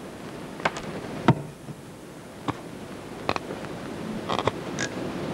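A handful of short, sharp clicks and light knocks, spread out, from handling a plaster rock as steel leg wires of a mounted bird are pushed through holes drilled in it, over a steady hiss.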